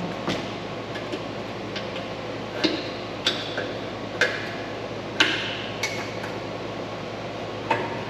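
Scattered metallic clicks and clinks, about seven at uneven intervals, some ringing briefly: exhaust hanger pliers being set on the factory muffler's rubber hangers and knocking against the exhaust.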